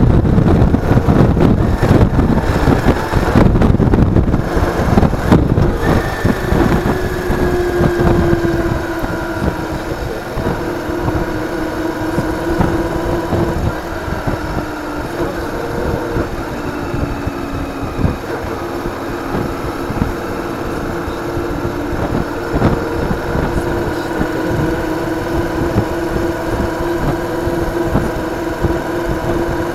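A vehicle engine runs at a steady, even pitch, recorded on an onboard action camera. Wind buffets the microphone heavily for the first six seconds or so, then eases and leaves the engine hum plain.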